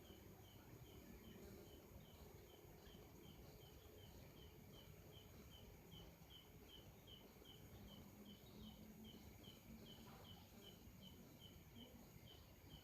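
Faint, high, short chirps repeating evenly about two and a half times a second over low background noise, the call of a small animal.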